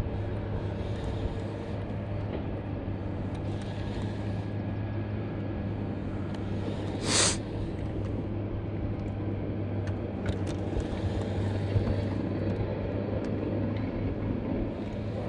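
Boat motor running with a steady low hum, over a rushing background. About seven seconds in comes one short, loud whoosh.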